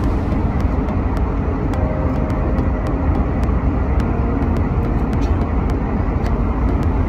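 Airliner cabin noise: a steady low rumble, with faint scattered clicks.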